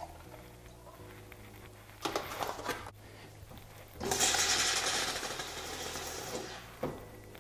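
Espresso machine steam wand purged into a cloth: a loud hiss of steam starting about four seconds in and lasting about two and a half seconds, clearing condensed water from the wand before milk is steamed.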